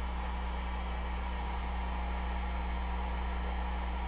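Steady low electrical hum with an even hiss underneath: background room tone, unchanging throughout.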